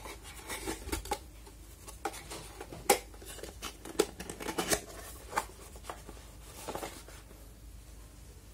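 Small cardboard box being closed by hand: its flaps folded and tucked in, with rustling and a few sharp clicks and taps of the card. The handling stops near the end.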